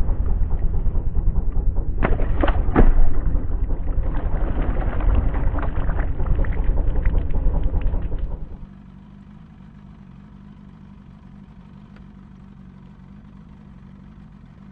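A released fish splashes into the lake about two seconds in, over a heavy, unsteady low rumble. After about eight and a half seconds the rumble gives way to a much quieter, steady low hum.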